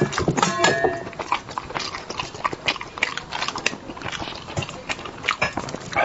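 Close-miked eating: wet chewing, lip smacks and mouth clicks coming irregularly several times a second.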